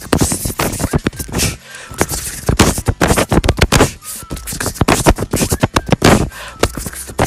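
Human beatboxing into a microphone: a fast, dense run of vocal drum sounds, sharp kicks and clicks one after another, with no words.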